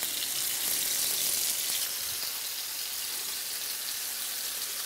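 Floured pieces of salt cod (baccalà) shallow-frying in olive oil in a skillet: a steady sizzle.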